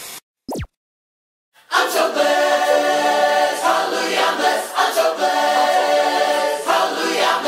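A quick falling pitch sweep sound effect, then about a second of silence, then a choir singing held chords that change every second or so.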